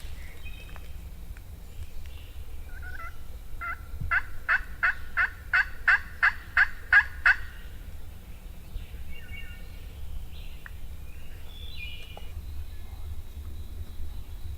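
A run of about a dozen turkey yelps, evenly spaced at roughly three a second and growing louder toward the end, followed a few seconds later by fainter, higher short bird calls.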